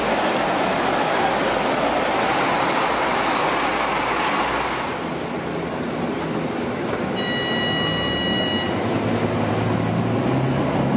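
Scania K310UB city bus pulling into the platform with a loud rush of engine and tyre noise. About five seconds in, the sound changes to the bus's engine heard from inside the cabin, a low steady hum, with a single electronic beep lasting about a second and a half near the middle.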